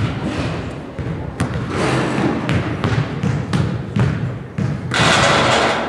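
Basketballs bouncing on a gymnasium floor: separate thuds at irregular spacing, with a short loud rush of noise about five seconds in.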